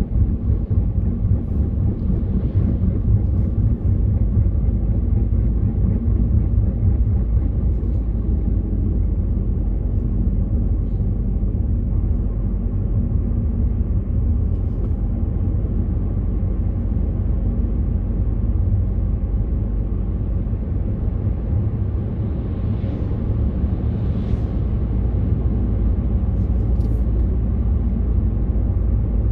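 Steady low rumble of a car driving at road speed, heard from inside the cabin: engine and tyre noise.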